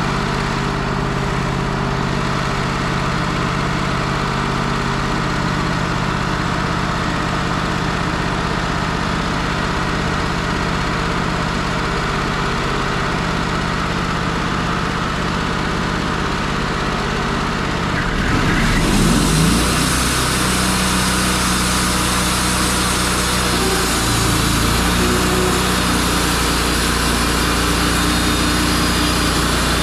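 Wood-Mizer LT35 sawmill's engine running steadily at idle, then about two-thirds of the way in it revs up with a rising pitch and settles into a louder, faster run with more hiss.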